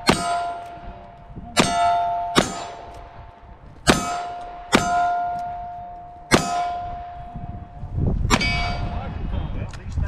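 About seven single-action revolver shots, spaced roughly a second apart, each followed by the ring of a steel target being hit, dying away over about a second.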